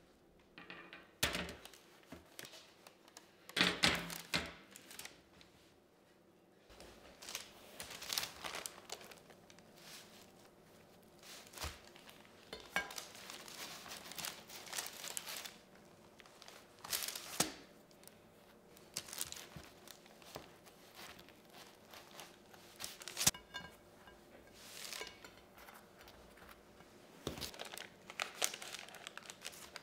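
Baking paper crinkling and rustling in irregular bursts as baked cheese flatbread is handled on it, with its crisp crust being pulled apart by hand.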